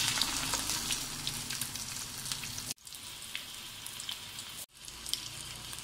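An egg-dipped bread slice sizzling in hot oil in a frying pan, with small crackling pops. The slice has just been flipped, and the sizzle is louder at first. The sound cuts out briefly twice, near the middle and about three-quarters of the way through.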